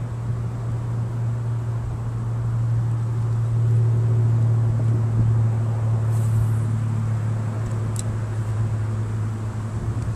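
A motor or engine running steadily with a low hum, swelling slightly in the middle, and a single sharp click near the end.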